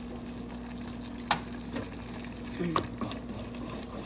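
A few sharp clinks of a utensil against a dish, over a steady background hum.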